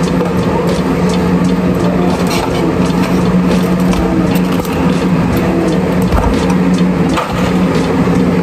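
A loud, steady mechanical hum with a rushing noise, like a motor or fan running. Over it come scattered light clicks and scrapes of a metal serving spoon scooping rice from an aluminium saucepan and knocking against foam bowls.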